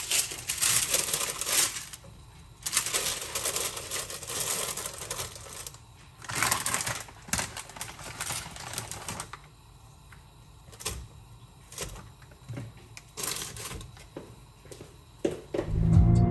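Crinkly plastic packaging of frozen buns rustling and crackling in several bursts, followed by scattered light clicks and taps. Near the end a car's low engine rumble cuts in.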